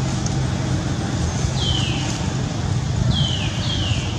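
Steady low rumble and hiss of outdoor background noise, with three short high calls from an animal, each falling in pitch: one about a second and a half in and two close together near the end.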